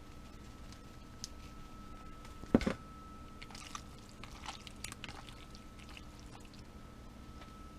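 Kitchen handling sounds while seasoning is added to jerky marinade: one sharp knock about two and a half seconds in, then a run of light clicks and rustles, over a faint steady hum.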